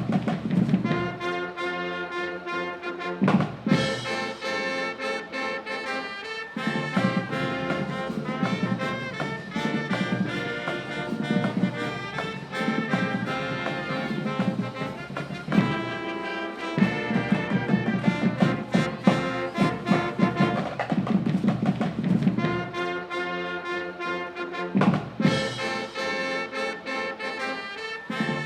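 Upbeat brass music, trumpets and trombones over drums, playing at a steady beat.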